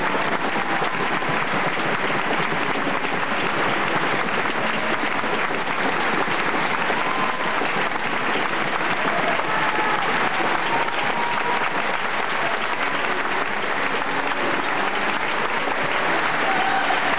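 Steady, dense applause from a theatre audience.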